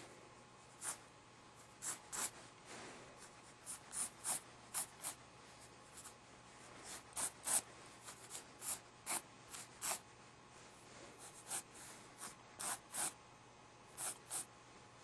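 A pen scratching across paper in short strokes as a drawing is inked. The strokes come irregularly, often in quick runs of two to five with short pauses between.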